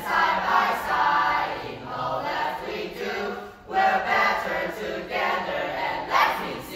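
A group of young voices singing together in unison, in phrases of a second or two with short breaks between them.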